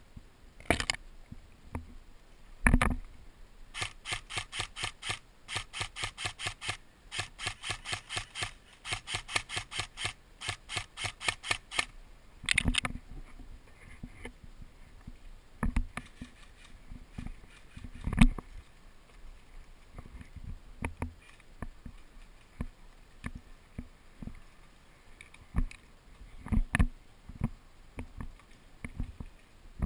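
Footsteps crunching through dry undergrowth: a quick, even run of steps, about three a second, from about four to twelve seconds in. Single sharp cracks and knocks come before and after it.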